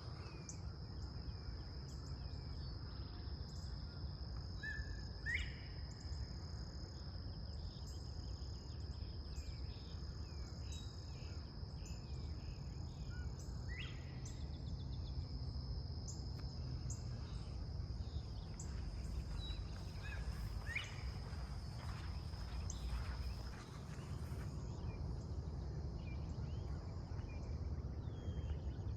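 Northern bobwhite whistling its rising two-note 'bob-white' call, repeated about every seven seconds, over a steady high insect drone that stops near the end. Small songbirds chirp throughout.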